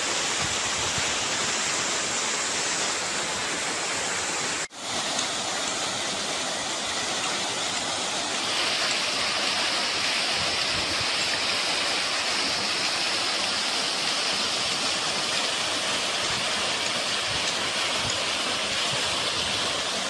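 Waterfall pouring down a cliff into a pool: a steady rush of falling water, with a brief break about five seconds in.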